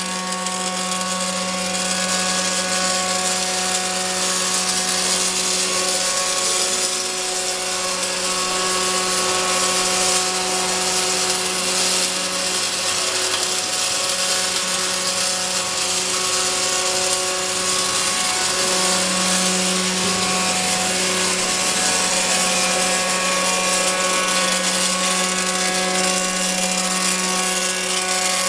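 Double-torch automatic circumferential welding machine arc-welding the seam of a rotating LPG cylinder: an even crackling hiss from the two arcs over a constant electrical hum.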